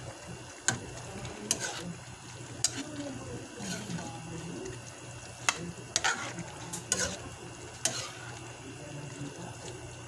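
Metal slotted spoon stirring pork picadillo in a wide pan, striking and scraping the pan with sharp clinks every second or so, over the simmering tomato sauce.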